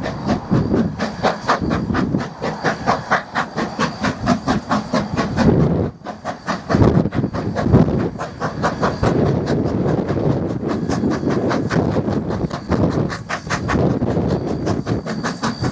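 NZR A class 4-6-2 Pacific steam locomotive A428 working a passenger train, its exhaust beating in a quick, even rhythm, with a brief lull about six seconds in.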